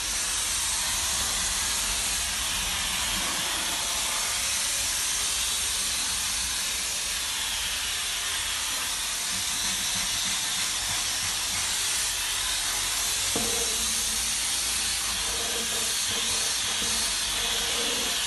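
Steam cleaner hissing steadily as its floor nozzle is pushed across a hard floor, with a low rumble underneath. A single sharp click comes about two-thirds of the way through.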